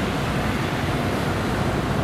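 Steady rumble of street traffic close by, with wind buffeting the microphone.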